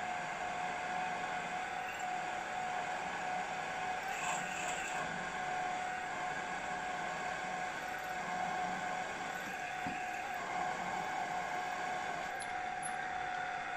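Bench pillar drill running with a steady whine while its twist drill bores the steam hole down through a model traction engine's steam chest casting.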